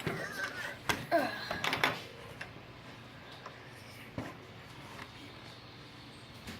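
Scattered small clicks and knocks of plastic toy car kit parts being handled and fitted together, busiest in the first two seconds alongside a brief vocal sound, then sparser.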